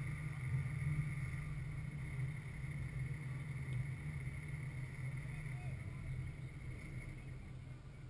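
Open-air ambience at a soccer game: a steady low rumble with faint, distant voices of players on the field.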